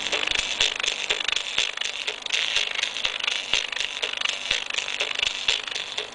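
Crackly, tinny audio played through a small speaker by a homemade class-D amplifier built from a quad op-amp. The sound is thin, with almost no bass, and full of irregular clicks.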